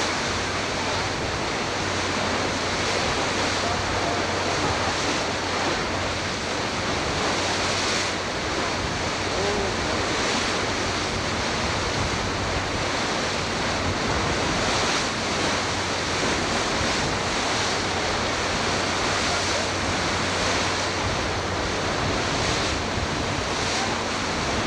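Steady rushing wind and water noise on the camcorder microphone aboard a moving boat, with a low steady hum underneath.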